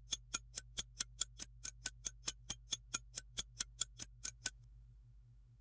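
Clock-ticking sound effect, about five sharp, even ticks a second, laid over a sped-up wait for the render. The ticks stop about four and a half seconds in; a faint steady low hum lies underneath.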